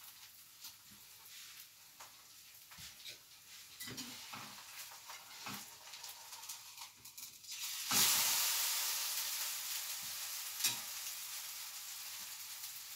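Spatula tapping and scraping on a frying pan as a thin pancake is worked out of it, then about eight seconds in a sudden loud sizzle as batter goes into the hot oiled pan, easing off slowly.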